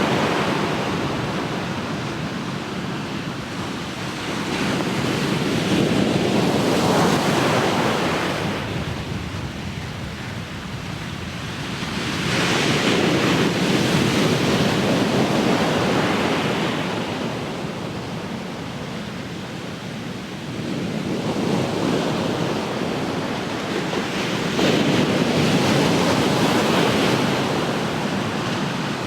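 Ocean waves breaking on the shore and washing back, surging about every five to seven seconds with a wash of surf between them. Some wind on the microphone.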